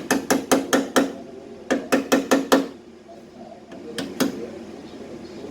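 Hammer blows on sheet metal, a quick run of five strikes, a second run of five, then two more after a pause, each with a short metallic ring.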